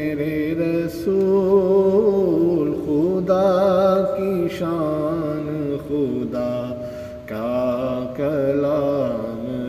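Wordless male vocal melody with wavering held notes, the closing strain of a naat.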